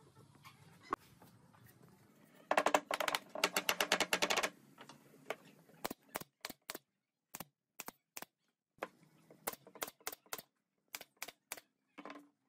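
Pneumatic nailer firing brads into the joint of a bent wooden arc and a straight rail. A fast clatter of clicks comes about two and a half seconds in. After that come sharp single shots in quick clusters of three or four.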